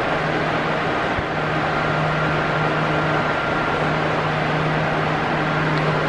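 Arno Silence Force 40 cm electric fan running at its top speed: a steady rush of air over a low, even motor hum.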